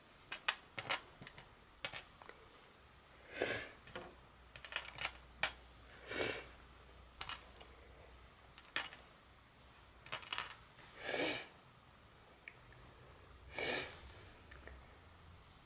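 Small plastic LEGO pieces being set down one at a time on a LEGO baseplate: scattered sharp clicks and light clatters, with four longer rattles of about half a second each.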